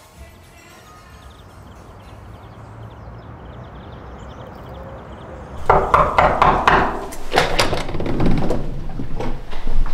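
Low hiss, then about halfway through a loud, irregular run of knocks and thuds, roughly three a second.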